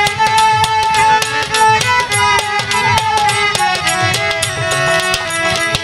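Violin playing a melody over a steady beat of hand drums, with no singing: an instrumental interlude in a Bengali Baul folk song.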